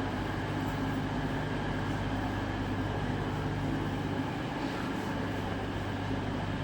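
Diesel train engine running steadily, a low even hum with no change in pitch.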